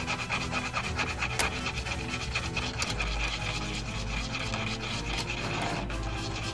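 Tip of a styrene plastic tube rubbed back and forth on a sheet of sandpaper in short, repeated scratchy strokes, rounding off its end.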